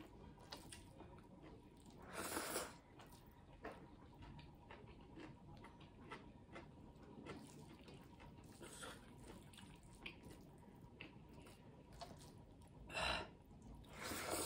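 Close-up eating sounds: fingers mixing and squishing rice and dal on a steel plate, with chewing and soft wet clicks throughout. There are a few short, louder noisy bursts about two seconds in and twice near the end.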